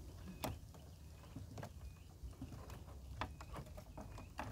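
Faint, scattered clicks and scrapes of a mud crab's shell and claws against the wire mesh of a crab trap as gloved hands work it free, the claws and legs snagged in the mesh. A few faint short high chirps sound in the background.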